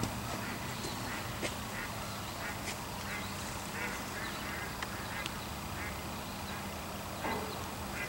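Ducks quacking at a distance, a steady series of short nasal calls.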